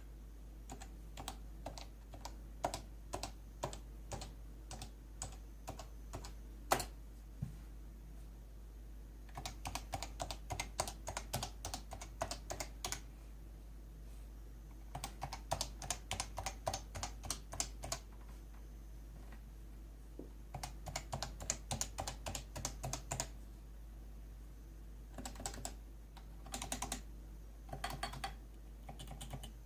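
Typing on a Leopold FC660C keyboard with Topre switches: quick runs of soft keystrokes lasting a few seconds each, separated by short pauses, with one louder single keystroke about seven seconds in. A steady low hum runs underneath.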